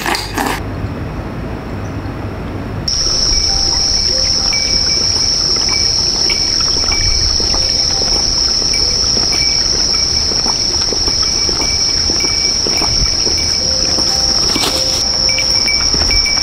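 Insects droning in one steady, high-pitched continuous call that starts about three seconds in, with a second insect's short chirps repeating evenly beneath it, over a low outdoor rumble.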